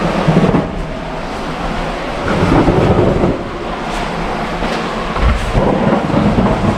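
Close rustling, scraping and rumbling of a person crawling over rock and mud right by the microphone, coming in three swells.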